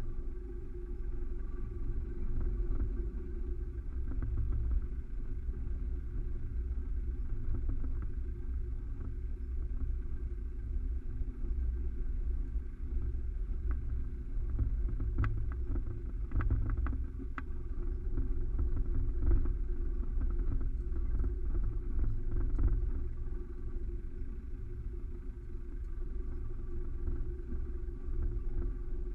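Vehicle driving along a dirt track: a steady low rumble of engine and tyres, with a cluster of short clicks and knocks around the middle.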